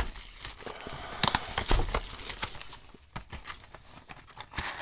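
Plastic shrink wrap being torn and peeled by hand off a cardboard trading-card booster box, with irregular crinkling and crackling that eases off about three seconds in.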